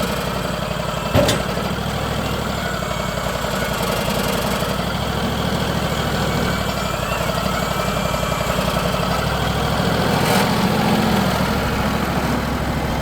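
Portable sawmill's engine idling steadily, with one sharp knock about a second in.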